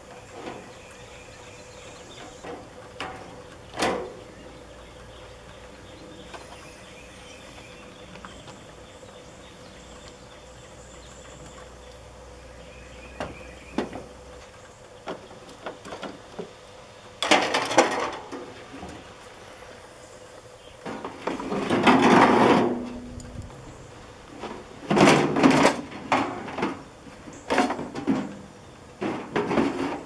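A gutted microwave oven's sheet-metal casing and its plastic parts being handled, knocked and slid about on a pickup truck's tailgate and bed. There are a few light clicks at first, then louder bangs and scrapes from about halfway through, the longest scrape a little past two-thirds of the way.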